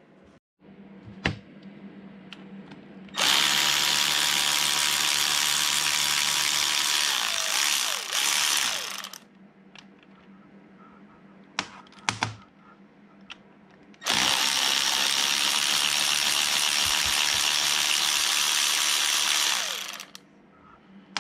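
Power drill/driver running in two long runs of about six seconds each, backing out the tail-housing bolts of a transmission; its whine holds steady, then drops as the trigger is let go. A few light clicks between the runs.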